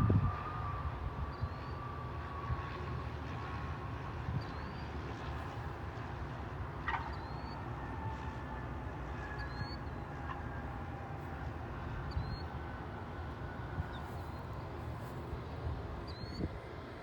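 Steady low rumble with a faint, slowly falling whine of distant jet aircraft engines. A small bird chirps briefly every second or two.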